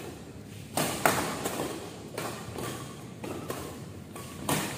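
Badminton rally: rackets striking a shuttlecock back and forth, a rapid series of sharp hits and thuds, about ten in under five seconds. The hits echo in a large sports hall.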